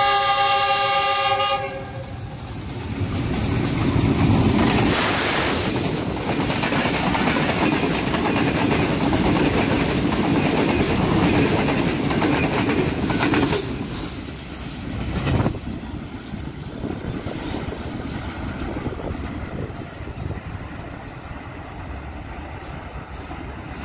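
A diesel locomotive's horn sounds a warning for the first couple of seconds. Then the express train passes close at speed, a loud rush of coaches with wheels clattering over the rail joints, until it stops abruptly about 13 seconds in. After that only quieter, steady rumbling noise remains.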